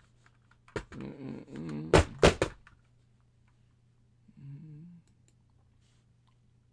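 A man's wordless low vocal sounds, a murmur with two sharp clicks in it, then a second short murmur past the middle, over a steady low electrical hum.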